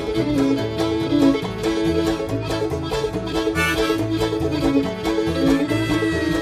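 String band playing an instrumental break with no singing: banjo, fiddle and guitar over a steady upright-bass rhythm.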